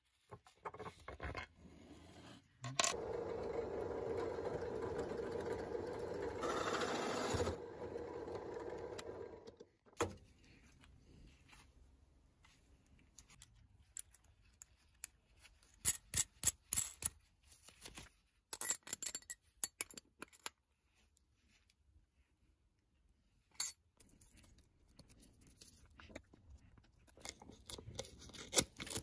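A cordless drill runs steadily for about seven seconds. Afterwards come scattered light metallic clicks and clinks from small metal hardware (nut, threaded rod, washer) being handled, and a few scrapes near the end.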